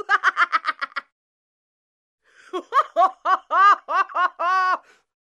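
High-pitched human laughter: a quick run of short ha-ha pulses in the first second, then after a pause a second run of longer laughs from about two and a half seconds to nearly five seconds.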